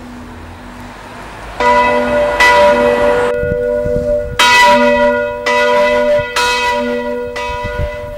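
Church bells ringing, a fresh strike about every second, starting nearly two seconds in.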